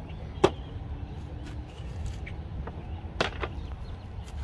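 A few sharp clicks and taps from fidget toys being handled on a plastic folding table: one loud click about half a second in, two more about three seconds in. A steady low rumble runs underneath.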